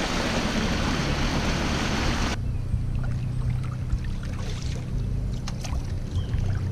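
Rush of water and wind as a small motor-driven boat speeds through the water, cut off abruptly about two seconds in. It gives way to quieter water sounds: a paddle dipping and dripping, with small scattered splashes and clicks.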